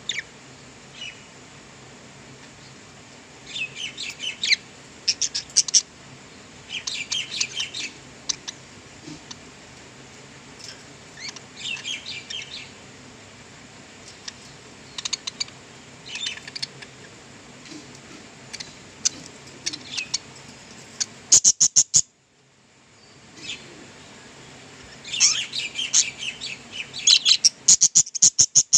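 Budgerigars chirping and warbling in short bursts every second or two. Two runs of rapid sharp clicks stand out as the loudest sounds, one about three-quarters of the way through, just before a brief dropout, and another near the end.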